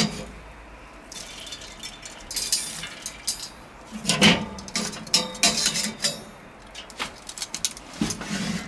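Handfuls of hickory wood chips dropped onto the hot charcoal in a Weber kettle grill, with scattered light clinks and rustles and a few louder knocks.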